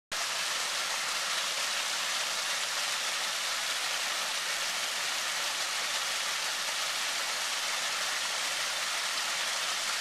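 Water splashing steadily down a man-made rock waterfall into a koi pond: an even hiss with little low rumble.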